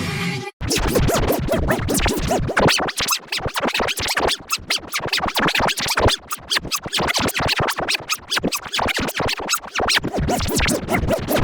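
Electronically edited music chopped into a rapid stutter, many short cuts a second in the manner of a DJ scratch or Sparta-remix stutter edit. It begins about half a second in, after a brief dropout.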